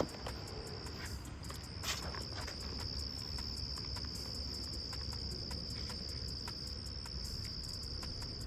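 Crickets trilling: a steady, high-pitched chirring that breaks off briefly about a second in, with a single click shortly after.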